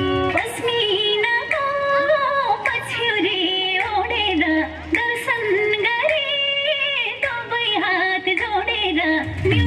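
Recorded song for a stage dance: a high singing voice carries an ornamented, wavering melody over sustained bass notes and instrumental backing. The voice comes in about half a second in and gives way to the instrumental backing near the end.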